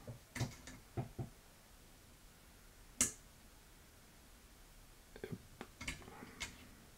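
A few light clicks and taps from multimeter test probes and hands on a circuit board, with one sharper click about three seconds in and a small cluster of taps near the end.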